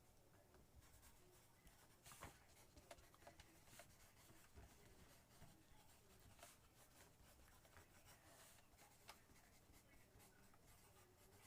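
Faint scratching of a pencil writing on paper, in short irregular strokes.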